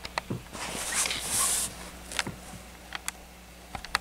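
Handling noise as a plastic DVD case is picked up: scattered small clicks and taps, with a soft rustle from about half a second to a second and a half in.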